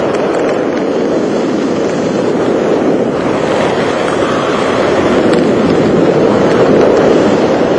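Wind rushing over a GoPro helmet camera's microphone as a skydiver flies low and fast under canopy on final approach; a steady rush that grows a little louder in the second half.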